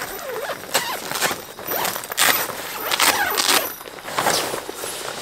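Nylon fabric of an A-frame tent's front door panel rustling and swishing in a series of irregular strokes as it is pulled open and rolled back.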